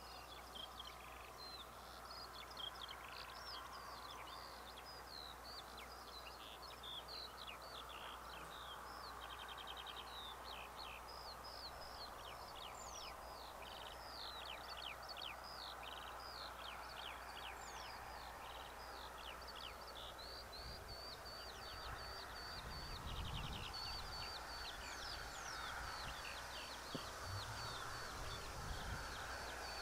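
Several small songbirds singing: a busy mix of quick chirps and down-sweeping notes, with two brief rapid trills and, near the end, a run of evenly repeated notes, over a faint steady outdoor hiss. Low rumbles come in during the last third.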